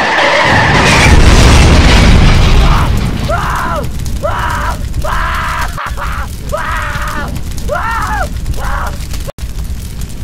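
Sound-effect explosion: a sudden loud boom with a low rumble that dies away over about three seconds. Then a voice cries out in about six short wails, each rising and falling in pitch.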